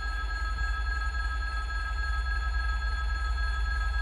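Steel rails singing with a steady high ringing of several fixed tones as a distant train approaches on the line, over a continuous low rumble.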